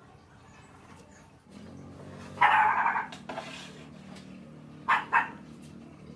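A dog barking: one longer bark about two and a half seconds in, then two quick barks close together near the end, over a low steady hum.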